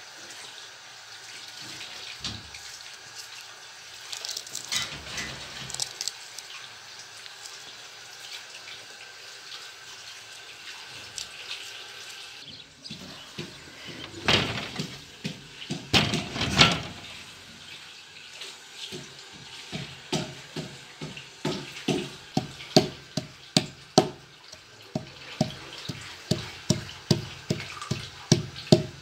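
A wooden pestle knocking on a wooden cutting board, pounding chopped walnuts and onion together, in a steady run of sharp knocks about twice a second that starts in the second half. Before that come quieter scattered taps and a few louder bursts of noise.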